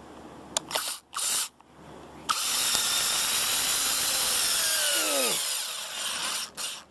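Cordless drill driving a 3-inch deck screw into the wood stud behind a door lock: a few short trigger bursts, then a steady run of about three seconds that slows with a falling pitch as the motor winds down, and more short bursts near the end.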